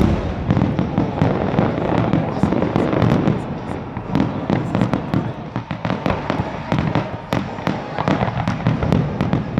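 Aerial fireworks bursting in a dense, continuous barrage: deep booms mixed with sharp cracks, several a second, without a break.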